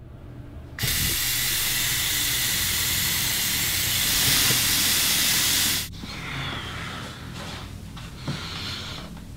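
Bathroom tap running full into a sink: a steady rush of water that starts abruptly about a second in and cuts off sharply near six seconds. Afterwards only a quiet room tone with a few faint rustles.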